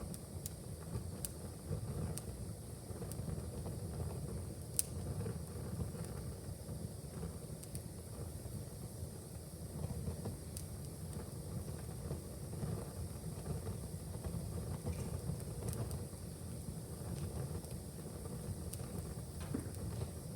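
Wood fire burning in a fireplace: a steady low rumble of flame with scattered sharp crackles and pops, the loudest pop about five seconds in.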